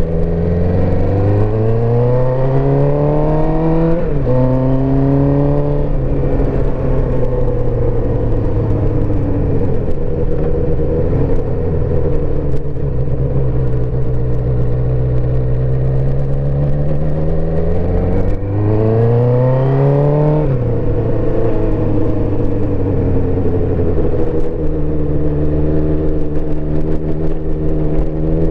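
1984 Suzuki GSX-R400's four-cylinder engine under way, pulling up through the gears with the pitch climbing and then dropping at upshifts about four and six seconds in. It then runs steadier and eases off for about ten seconds, pulls hard again with another upshift around twenty seconds, and picks up once more near the end, with a steady rush of wind noise underneath.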